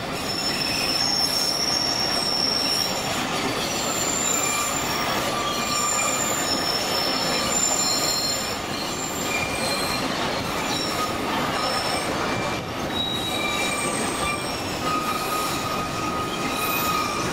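Narrow-gauge train running on a curving track, its steel wheels squealing in high thin tones that come and go over a steady rolling rumble.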